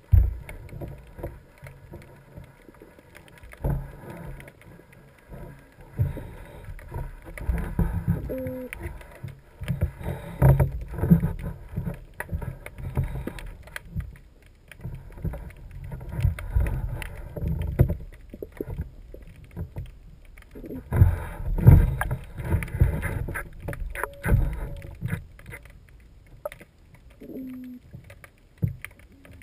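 Irregular low thumps and knocks, coming and going in clusters, heaviest around ten and twenty-two seconds in. Two short low hums come about eight seconds in and again near the end.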